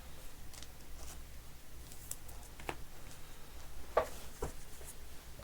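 Trading cards and their packaging being handled on a table: light rustling and soft taps, with a sharper tap about two-thirds of the way in and another just after it.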